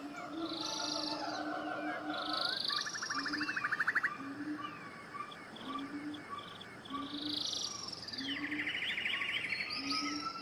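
Birdsong ambience: several birds chirping and calling over one another, with two rapid trills and short low notes repeating about once a second.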